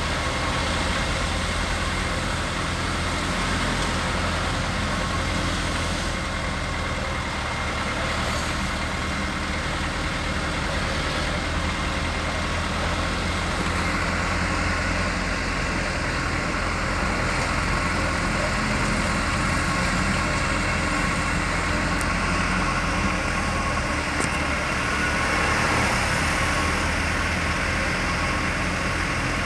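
A motor vehicle driving along, its engine running steadily under an even rumble of road noise, with no sudden changes.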